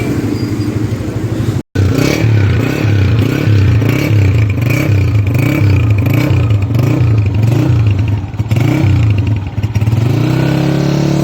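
Motorcycle engine running with a steady, pulsing low note, with a brief cut out less than two seconds in, then revving up near the end.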